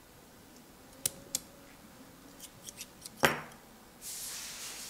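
Small CNC aluminium RC crawler rims and rim rings being handled: a few light metallic clicks and taps, a louder clink about three seconds in, then a soft hiss near the end.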